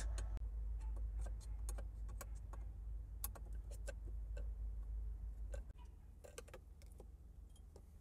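Ratchet with a Phillips bit clicking in irregular ticks as it backs out a tight screw, over a low steady hum that stops about six seconds in.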